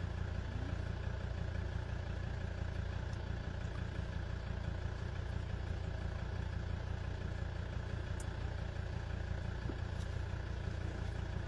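A steady low mechanical drone from a running machine, unchanging throughout.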